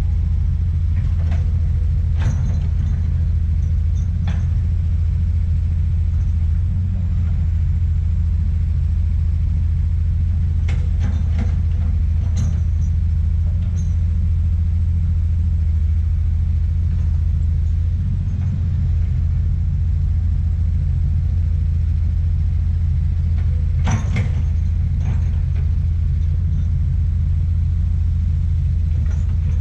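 Komatsu PC200 excavator's diesel engine running under work with a steady low rumble, with a few short knocks from the machine working, the loudest about three-quarters of the way through.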